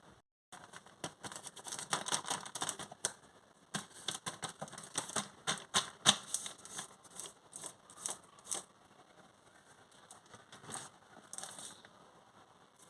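Close-up handling of crinkly packaging: a dense run of irregular crackles, clicks and taps, busiest in the first two-thirds and thinning to a few short crackles near the end.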